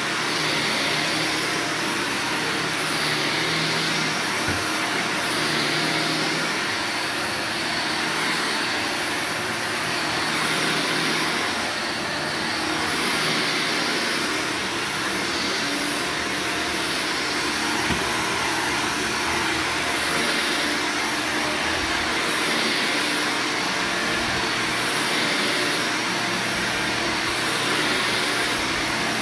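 Upright vacuum cleaner running steadily while pushed back and forth over carpet, its hiss swelling and easing slightly with each stroke.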